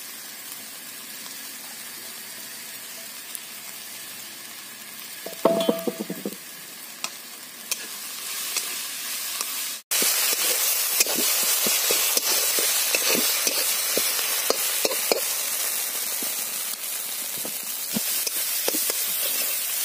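Chopped leafy greens frying in a steel kadai of onion, tomato and spice paste, hissing as a metal spatula stirs and scrapes them against the pan. The sizzle is soft at first and turns louder about ten seconds in, with frequent clicks of the spatula on the metal. A brief pitched sound comes a little over five seconds in.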